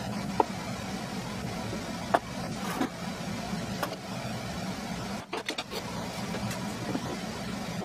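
Glued wooden pieces knocking together as they are handled, then a quick run of clicks about five seconds in as a Quick-Grip bar clamp is tightened on them. A steady hum underlies it all.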